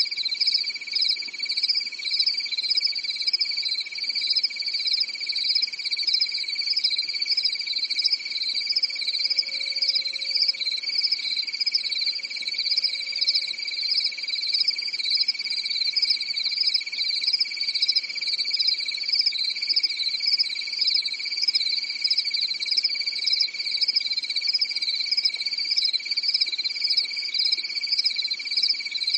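Insects calling in a steady chorus: a continuous high-pitched buzz, with a higher trill above it that pulses rhythmically.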